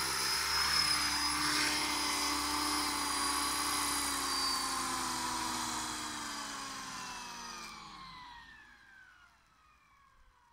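Thunder Tiger AH-1 Cobra RC model helicopter's motor and rotor whine, steady at first. About six seconds in it spools down after landing, falling steadily in pitch; the high part cuts off about two seconds later and the rest winds down and fades out.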